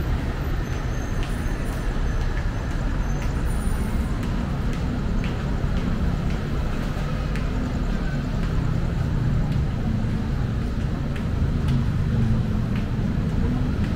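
Steady rumble of busy city road traffic, cars and buses running past.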